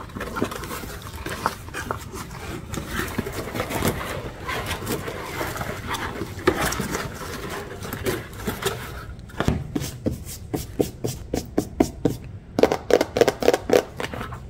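Crinkle-cut kraft paper packing fill rustling and crackling as hands dig through it. About nine seconds in, this gives way to a run of quick sharp taps, about three a second, as the phone's cardboard retail box is handled and tapped with long fingernails.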